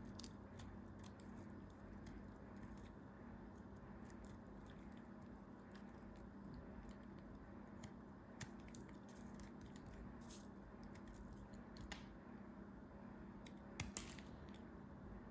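Faint, irregular crackling and squishing from a crumbly material being pressed and cut by hand, with a few sharper clicks. The loudest is a quick pair about fourteen seconds in.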